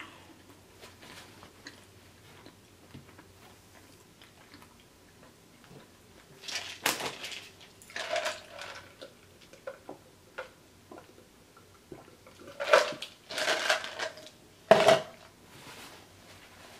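Eating and drinking sounds: after a quiet stretch of chewing, several short bursts of sipping and swallowing from a plastic cup, with small clatters of the cup.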